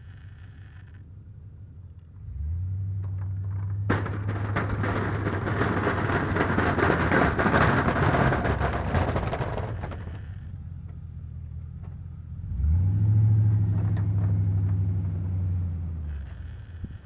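Pickup truck engine, a 2002 Silverado 2500HD with a Western V-plow, revs up and pulls under load. From about four to ten seconds a loud rushing scrape from the plow blade pushing through snow covers it. The engine revs up again later, holds, then eases off near the end.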